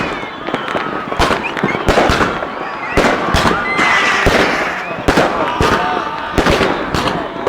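Many fireworks going off at once: an irregular string of loud bangs, several a second, over continuous crackling, with occasional whistles.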